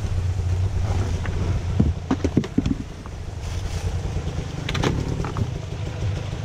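Footsteps over loose rocks and dry leaves, with a few sharp knocks and crunches about two seconds in and again near five seconds, over a steady low rumble.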